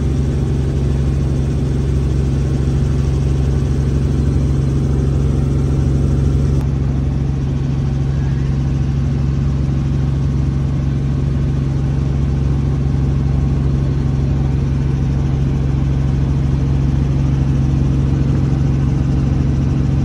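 Light helicopter's engine and rotor droning steadily in flight, heard from inside the cabin.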